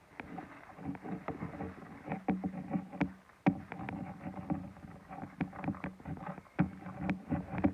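Slime being stirred in a bowl, with a rapid, irregular run of wet squelches and clicks and a short pause about three and a half seconds in. The glue is thickening after activator has been added.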